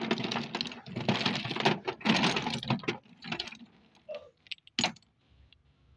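Dry baked-clay biscuits (Punjab mitti) clattering and clinking against each other as a hand stirs through a heap of them: a dense rattle for about three seconds, then a few scattered clicks.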